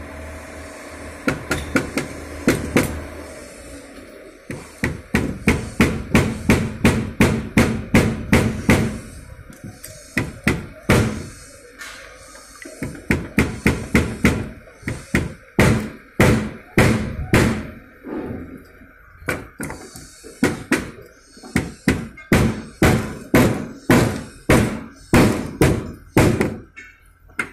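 Hammer striking metal fittings, steady runs of sharp ringing blows about two a second, broken by short pauses.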